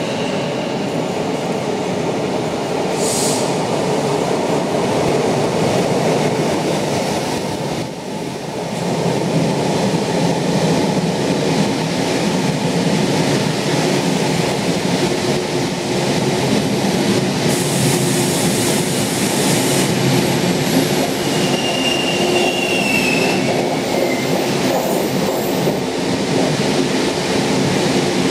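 Taiwan Railways E1000 push-pull express train running into an underground station, a steady, echoing rumble of wheels and running gear. A few seconds of high hiss come a little past the middle, and a short high squeal follows a few seconds later.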